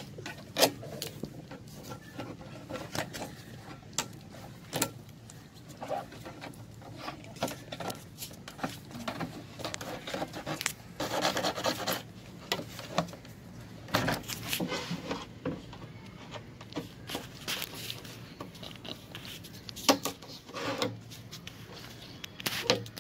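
Pencil scraping and rubbing on the side of an empty plastic water-dispenser bottle as a cutting line is marked on it, with scattered sharp knocks and taps from the hollow bottle being handled.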